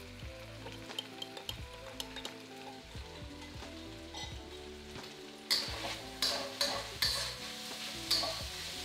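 Chicken chunks sizzling in hot oil in a wok as a metal spatula scrapes and turns them, in strokes about twice a second from a little past halfway. Soft background music underneath, with a few light clinks in the first half.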